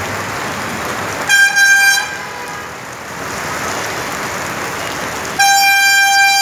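Steady hiss of heavy rain and rushing floodwater, cut through by a vehicle horn sounding twice: a short toot just over a second in, then a longer, louder blast starting near the end.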